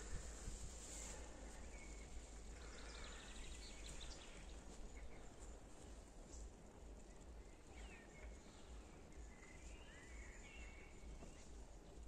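Faint outdoor garden ambience: a low steady rumble under a soft hiss, with a few faint bird chirps about three seconds in and again between eight and eleven seconds.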